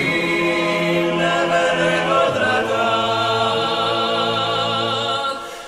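Dalmatian klapa group singing a cappella in close harmony, holding long sustained chords on a vowel between lines of the song. The chord moves about two seconds in, and the voices die away near the end.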